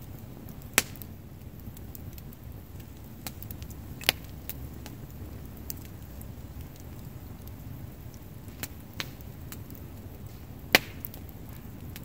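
Wood campfire burning and crackling, with sharp pops from the logs over a steady low rumble. Three pops stand out as much louder: about a second in, about four seconds in, and near the end.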